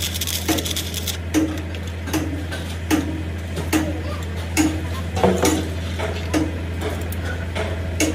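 Regular metallic ticks, a little over one a second, each with a short low ring, over a steady low electrical hum.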